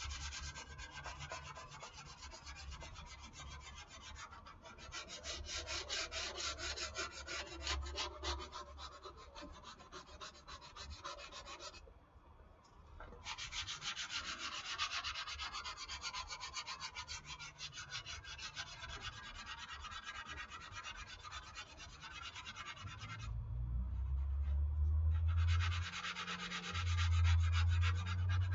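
Hand sanding with 220-grit dry sandpaper: quick back-and-forth rubbing strokes over dried wall spackle filling on a foam model-airplane wing, pausing briefly twice. A low hum comes in near the end and is the loudest sound there.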